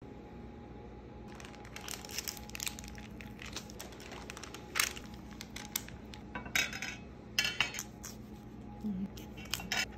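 Food-prep handling sounds: parchment paper rustling and crinkling as it is folded over bacon and cheese, with scattered light clicks and knocks, and a knife cutting into a raw potato near the end.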